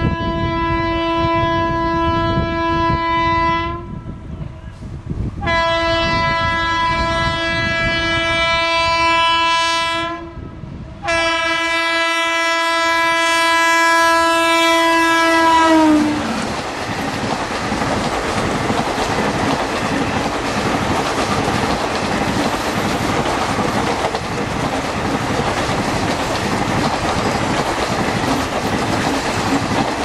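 WAP4 electric locomotive's horn sounding three long blasts as the express approaches at speed, the pitch dropping as the locomotive passes about sixteen seconds in. Then its coaches run past close by, with a steady noise and the clickety-clack of wheels over rail joints.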